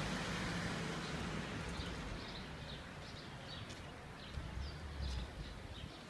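Street ambience: a low steady rumble of city traffic, with small birds chirping over it, their short calls repeating from about two seconds in.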